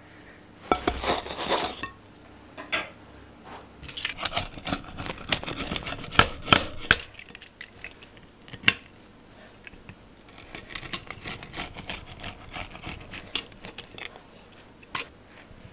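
Metal pizza cutter wheel rolling through a baked pizza and scraping and clicking against the ceramic plate beneath, in a series of short strokes, with a longer scrape about a second in.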